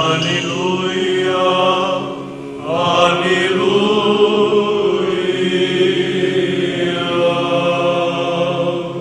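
Romanian Orthodox church chant: voices sing a long, drawn-out 'Aleluia' refrain over a steady low held note. There is a brief break for breath about two seconds in, then the singing resumes.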